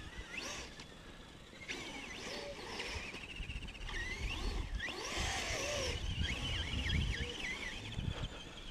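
High-pitched whine of RC trucks' brushless electric motors, rising and falling with the throttle and steadier near the end, with wind rumble on the microphone and a brief spray of sand about five seconds in.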